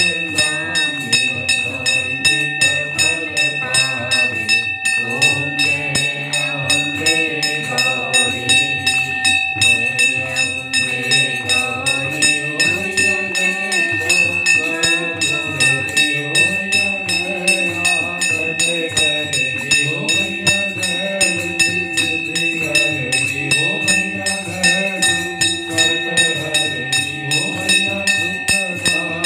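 Hindu devotional aarti music: singing over a steady beat of jingling, rattling percussion, about two strokes a second, with a sustained ringing tone held throughout.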